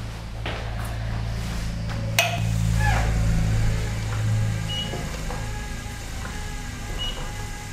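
SC916 stair climber running: a steady low hum, a sharp click about two seconds in, then short high squeaks, some sliding down in pitch, recurring as the steps move.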